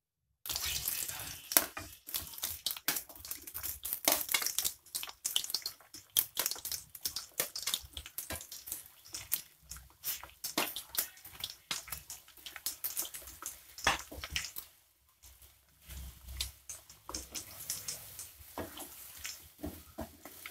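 Boiled garadu (yam) chunks dropped into hot oil in a kadai and deep-frying: a dense sizzle full of sharp crackles and pops, starting about half a second in and briefly easing about two-thirds of the way through.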